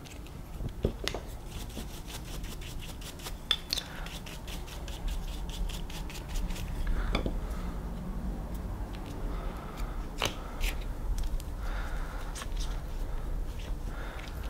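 Scattered light clicks, taps and rubbing of small metal and plastic parts as an RC buggy's coil-over shock absorber is taken apart by hand, with a sharper click about ten seconds in.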